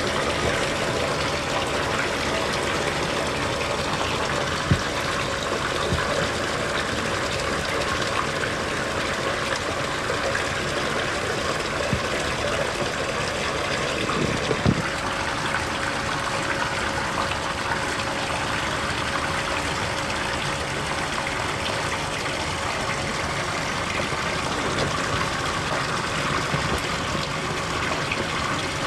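Steady rush of running water with a faint steady hum, broken twice by a soft knock.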